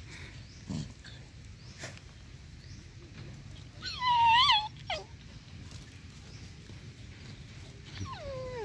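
A dog giving a loud high-pitched whining yelp about four seconds in, its pitch wavering, and a shorter whine that falls in pitch near the end, as two dogs play-fight roughly in a dug hole.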